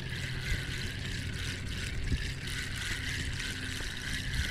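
Spinning reel cranked steadily to bring in a hooked bass, a continuous whirr with a slight waver.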